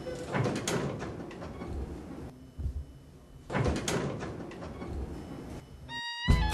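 Elevator doors sliding, in two noisy stretches about three seconds apart. Near the end the sound drops out briefly and music with a violin begins.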